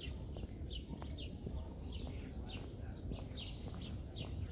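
Small birds chirping: short, quick falling notes repeated a couple of times a second, over a low, steady rumble.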